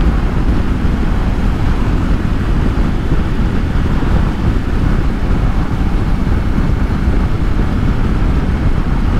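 Steady wind rush and road noise while riding a Kawasaki Versys-X 300 motorcycle at speed.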